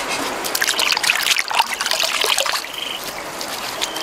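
Wet clay squelching and dribbling under hands that press and smooth it over the food, a dense run of short wet clicks.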